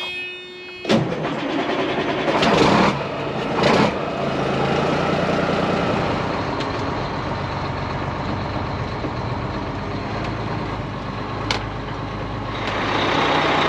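Semi truck's diesel engine running, with two brief loud noisy bursts about two and a half and four seconds in. It gets louder about a second before the end as the truck pulls forward.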